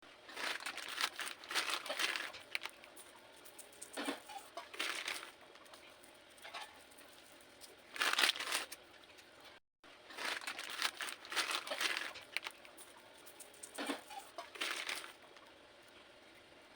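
Cornstarch-coated blocks being crushed, crunching and crumbling in bursts with short pauses between them. The sound cuts out for a moment a little over halfway through, then the crunching resumes.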